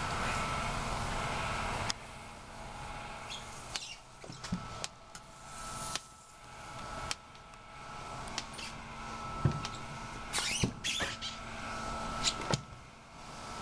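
A metal cover plate being handled and fitted onto a box: scattered clicks, light knocks and short scrapes, with a faint steady equipment hum underneath. A steady rushing noise stops abruptly about two seconds in.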